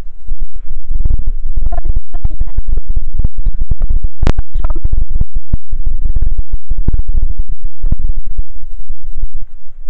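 Loud, distorted rumbling and crackling from a phone microphone being jostled and buffeted while the person holding it runs. The noise is an irregular run of knocks and scuffs with no steady rhythm.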